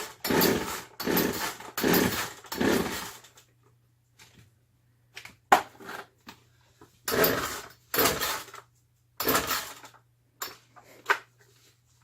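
Chainsaw being pull-started without catching: the recoil starter cord yanked five times in quick succession, each pull about half a second, then a sharp knock about five and a half seconds in and three more pulls. A faint steady low hum runs underneath.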